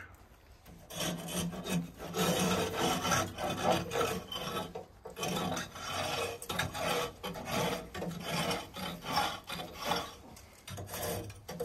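Repeated scraping strokes inside a wood- and coal-fired central-heating boiler, as tar and soot deposits are scraped off its heat-exchanger passages. The tar builds up when the boiler is run at low temperature, below about 45 degrees.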